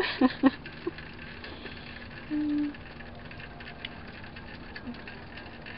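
Dog, a Basset Hound–Pit Bull mix, giving two short, loud yelps near the start and a brief held cry a little past two seconds in.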